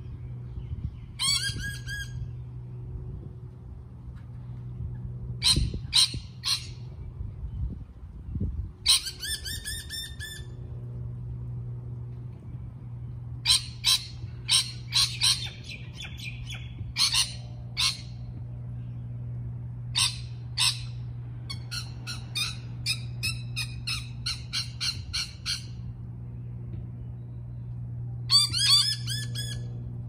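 Rainbow lorikeets screeching in repeated bursts of harsh, shrill calls, with a fast run of short screeches for several seconds past the middle. A steady low hum runs underneath.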